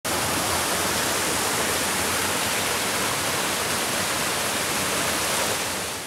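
Water rushing and splashing over rocks in a fast mountain stream, a steady full hiss that fades out near the end.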